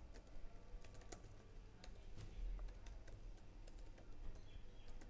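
Typing on a computer keyboard: faint, irregular key clicks as a line of code is entered, over a low steady hum.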